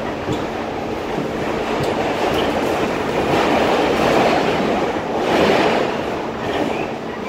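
Subway train running on the rails, heard from inside the car: a steady rumble and rattle of the wheels on the track that swells louder about halfway through.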